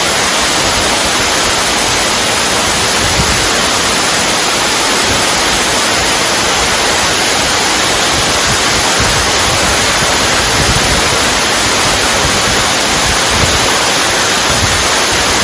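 Waterfall plunging 29 m inside a limestone cave, a steady, loud rush of falling water.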